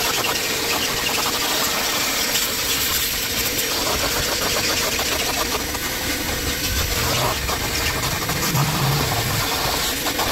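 Vacuum cleaner running steadily with a faint hum, its hose nozzle sucking loosened dirt out of a car's floor carpet.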